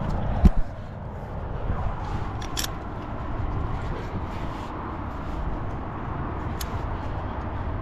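Climbing noise picked up by a body-worn camera while jamming up a granite crack: a steady low rumble, a sharp knock about half a second in, and a couple of light clicks later on.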